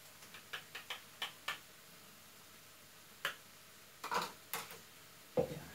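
Fork clicking against the side of a plastic jug of freshly beaten eggs: several quick light taps in the first second and a half. Then a few scattered knocks and clicks of utensils and items being handled on the worktop, with a small cluster a little after the middle.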